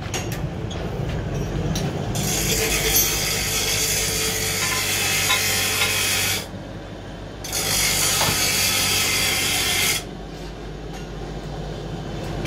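Metal lathe running with a steady low hum while a tie rod end clamped on it is machined, with two long stretches of harsh, hissing cutting noise, about four and two and a half seconds long, that start and stop abruptly.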